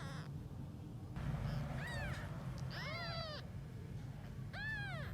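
Newborn kittens mewing: three short, high-pitched cries, each rising and then falling in pitch, about a second apart in the second half.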